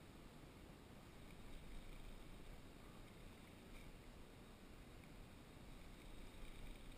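Near silence: faint steady low rumble and hiss of open-air room tone, with no distinct splashes or reel sounds standing out.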